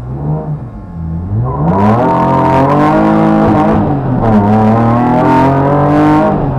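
BMW race car's engine heard from inside the cockpit: a few blips at the start, then it pulls away hard at full throttle. The engine note climbs and holds high, dropping and climbing again at two upshifts, one about four seconds in and one near the end.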